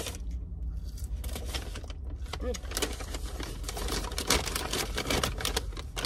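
A paper takeout bag rustling and crinkling as it is handled and opened, busiest over the last few seconds, over a steady low hum inside the car.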